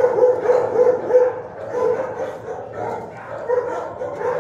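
Dog barking repeatedly in a shelter kennel, a quick run of barks in the first second or so, then more spaced out.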